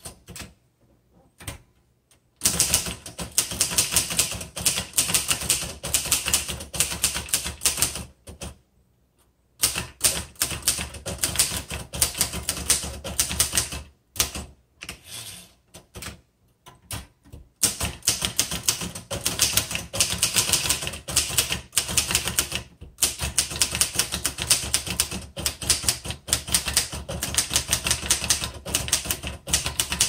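Late-1950s Underwood Leader manual typewriter being typed on: fast runs of crisp key strikes, broken three times by short pauses where the carriage is returned with its lever.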